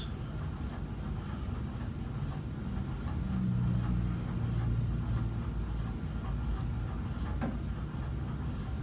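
Low, steady room rumble with no speech, swelling slightly in the middle, and a single faint click about seven seconds in.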